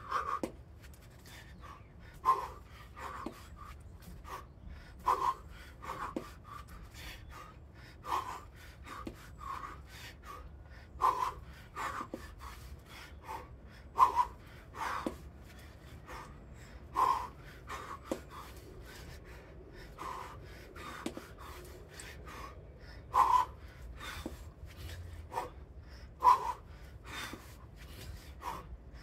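A person breathing hard, with short gasping exhalations and pants about every second or two, from the exertion of a kettlebell and bodyweight circuit.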